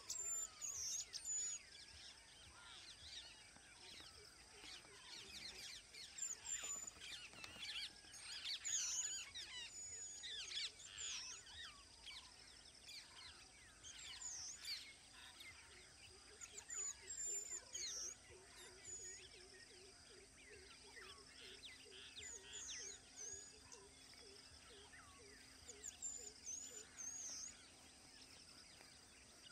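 Wild birds chirping and calling in many short rising and falling notes, thickest from about six to twelve seconds in, over a steady high hum. About halfway through, a lower call repeats quickly for a few seconds.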